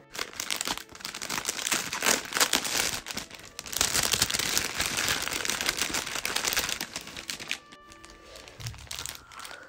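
Clear plastic bag and the small plastic bead packets inside it crinkling and rustling as they are handled and pulled out, a dense irregular crackle that eases off about seven and a half seconds in.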